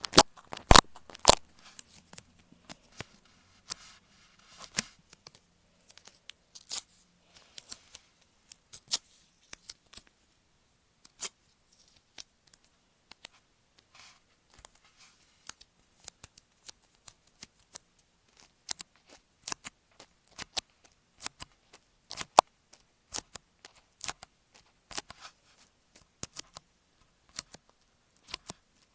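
Tweezers and fingertips tapping, scratching and rubbing on a masking-tape-covered EarPods microphone, heard right at the mic: irregular sharp clicks and taps with faint scratchy rustling between them. The loudest taps come near the start and about twenty-two seconds in.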